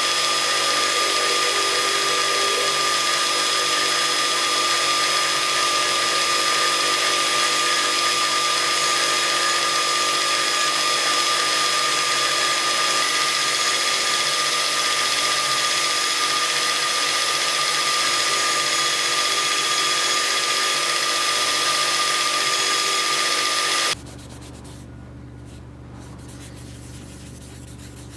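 Belt grinder running steadily with a whine while a wooden sword guard is pressed against the sanding belt at the contact wheel and ground to shape. About four seconds before the end the sound cuts off abruptly, leaving a much quieter low hum.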